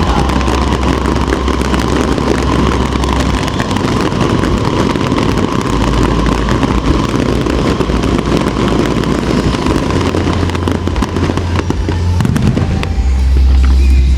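Aerial fireworks going off in quick succession: a dense, continuous crackle of many sharp bangs over a low rumble.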